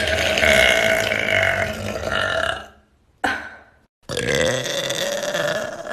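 A girl burping loudly: a long, drawn-out burp lasting about two and a half seconds, a short one about three seconds in, then another long burp beginning about a second later.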